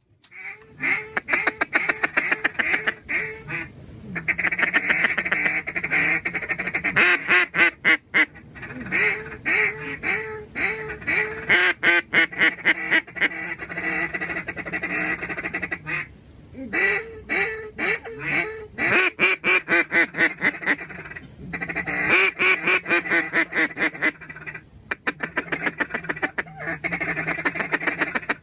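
Mallard-type duck quacking, nearly continuous: runs of quacks that fall in pitch, mixed with fast rattling chatter, broken by short pauses.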